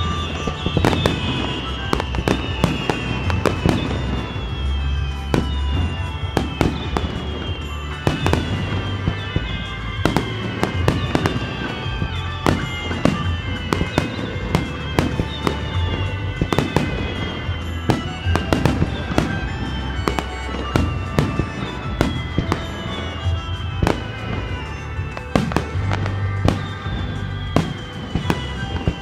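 Fireworks display: aerial shells bursting one after another in quick succession, with sharp bangs and crackle, and repeated whistles sliding down in pitch every second or two, over music.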